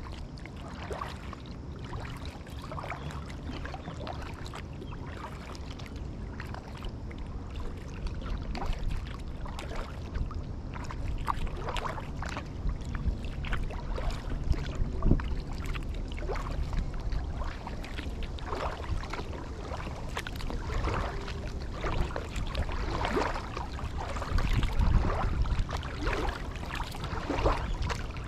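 Water splashing and dripping around a kayak as it is paddled, in irregular small splashes that grow busier in the second half, over a low steady rumble.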